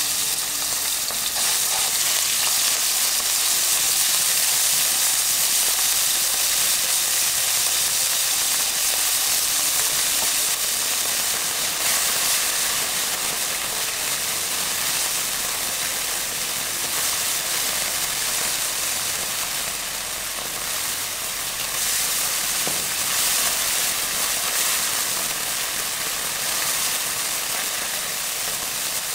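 Minced meat sizzling in hot cooking oil in a nonstick wok, a loud steady frying hiss as the meat is stirred and broken up with a silicone spatula.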